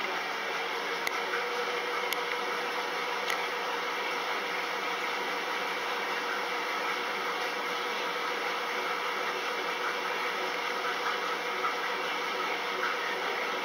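LG direct-drive commercial front-load washer running mid-cycle: a steady, even whir with a constant tone through it.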